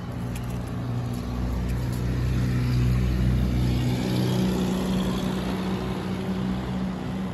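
A motor vehicle engine running close by, growing louder toward the middle, with its hum moving to a higher pitch about four seconds in.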